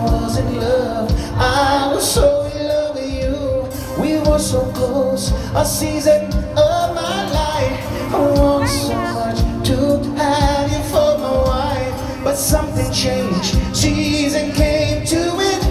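Live band music with a lead singer, over a steady beat.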